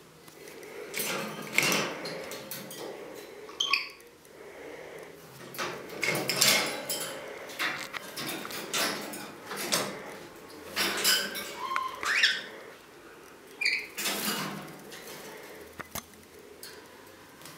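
Green-naped lorikeet calling in short, scattered bursts of harsh screeches and chirps, some sliding up or down in pitch, with clinks and rattles of its wire cage as it climbs.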